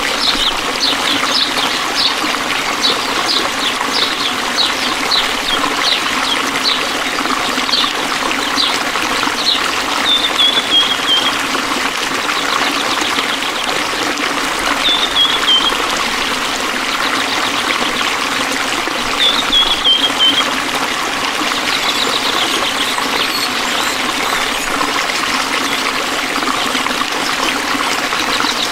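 Running stream water trickling steadily, with a series of short high chirps repeating nearly twice a second for the first ten seconds, then three brief descending trills spaced several seconds apart.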